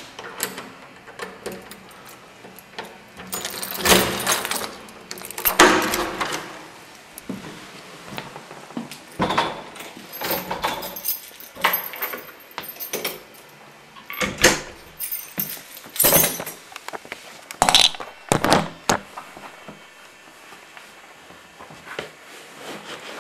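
A series of irregular knocks, bangs and clatters of objects being handled, with some light jangling; the loudest come about four and six seconds in.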